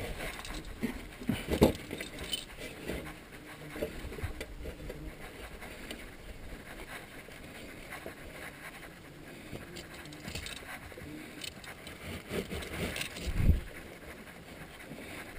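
Anti-skid wheel bracelet being fitted to a car's steel wheel by hand: the chain clinks and rattles and the textile strap scrapes as it is pulled through the rim, with scattered small knocks. The loudest knocks come a little over a second in and about two seconds before the end.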